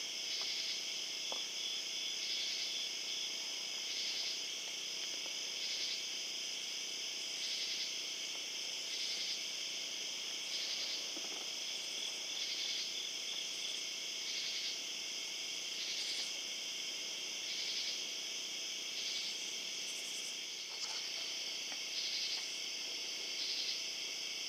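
A chorus of night insects, crickets among them, trilling steadily in a high pitch. It swells and dips about once a second.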